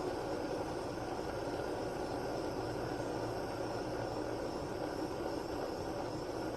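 Steady running noise of a car in motion, even and without distinct clicks.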